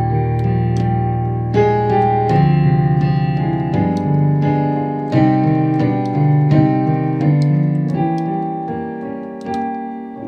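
Piano played solo: a held bass chord under a melody, with new notes and chords struck every half second or so, then letting the last chord ring and fade near the end. It is a fuller, embellished version of a simple pattern.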